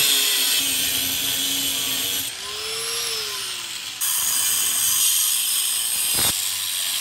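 Angle grinder with a thin cut-off wheel cutting through the steel frame castings of a Harley-Davidson Shovelhead swingarm frame, a loud hissing cut. The cut eases off a little over two seconds in, the motor's pitch rising and falling, then the wheel bites in loud again about four seconds in.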